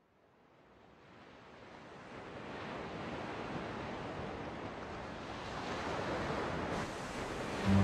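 Ocean waves washing, a steady surf ambience that fades in from silence over the first few seconds and then holds.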